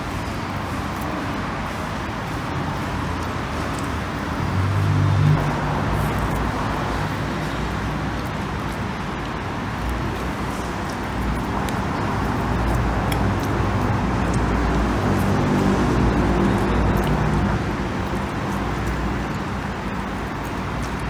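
Steady road traffic noise, with a motor vehicle's engine running louder briefly about five seconds in and again through the middle.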